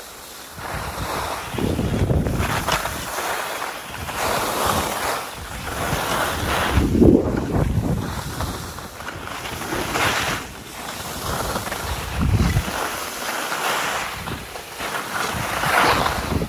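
Wind buffeting the microphone and skis scraping and hissing over groomed snow, swelling and fading with each turn about every two to three seconds.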